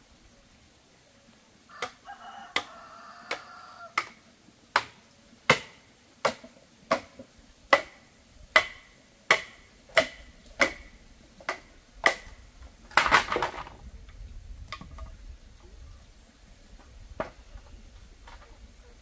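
A hand tool striking repeatedly, about fifteen even blows roughly 0.7 seconds apart, each with a short ring. About a second later comes a brief scraping rustle, then a few faint knocks.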